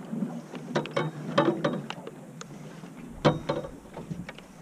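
Fishing reel being cranked to bring a hooked fish up to the boat, its gears and handle giving irregular clicks and rattles, with one sharper knock about three seconds in.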